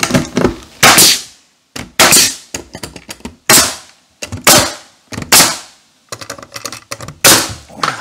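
Pneumatic nail gun firing nails into pine boards: about seven sharp shots at irregular intervals of roughly a second, each with a short fading tail, and lighter clicks between them as the gun is moved along the board.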